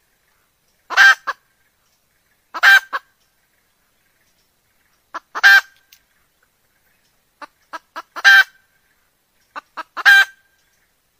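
Red junglefowl hen calling: five short, loud calls spaced two to three seconds apart, several of them led by one or two quick soft notes.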